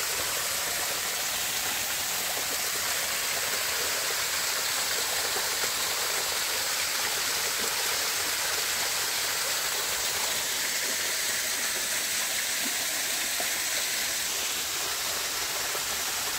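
Small waterfall pouring over a rock ledge edged with ice and icicles and splashing into a pool below. It makes a steady, even hiss of falling water that does not change.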